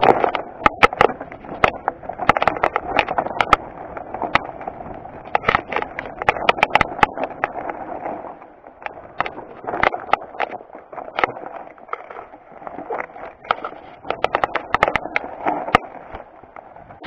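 Mountain bike rattling down a loose, rocky trail: tyres crunching and scraping over stones, with rapid clicks and knocks from the bike's chain, frame and parts jolting over rocks. The rumble eases for a few seconds in the middle, then picks up again.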